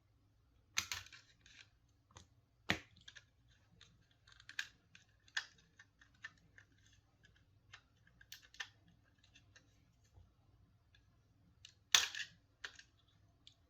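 Plastic shell of a Logitech Performance MX mouse being pried and pulled apart by hand: scattered irregular plastic clicks and light knocks. The loudest come about a second in and near the end.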